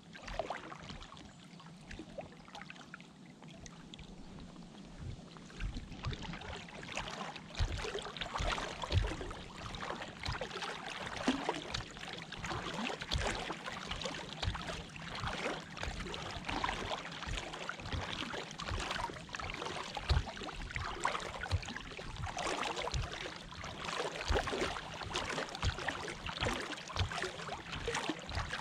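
Water splashing and trickling around a small boat on the river, a dense irregular crackle that grows busier a few seconds in, with scattered low thumps.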